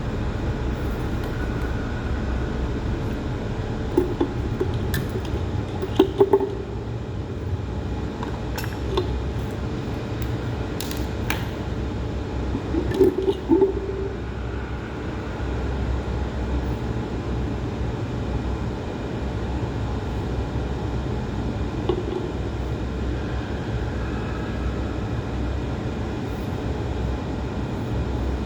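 Steady low machinery hum with scattered metallic clinks and taps, clustered between about four and fourteen seconds in.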